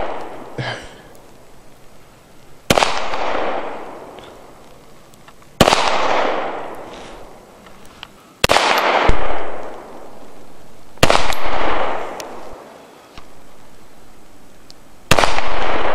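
Five single gunshots spaced about three seconds apart, each a sharp crack followed by a long fading echo.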